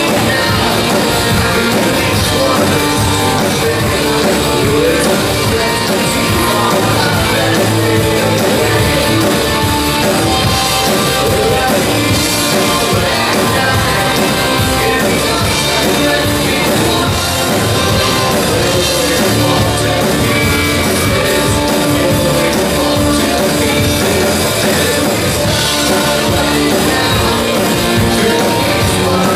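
A rock band playing live: electric guitars, bass guitar, keyboards and drums with a steady beat, and a lead voice singing over them.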